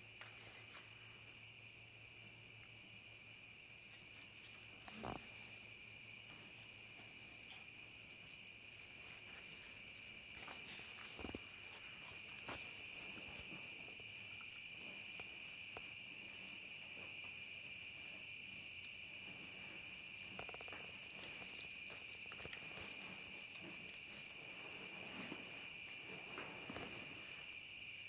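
Crickets trilling steadily, a faint continuous high-pitched chorus. A few faint knocks and light rustles sound over it, around 5 and 11 seconds in.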